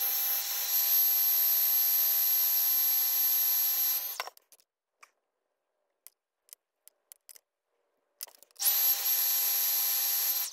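Hairdryer blowing with a steady whine, run for about four seconds, switched off, then run again for about two seconds near the end, warming a servo case so a part of it peels off.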